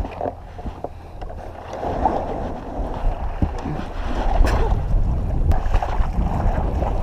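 Wind buffeting a GoPro microphone as a low rumble that grows stronger about two seconds in, over water sounds around a kayak, with a couple of faint knocks in the middle.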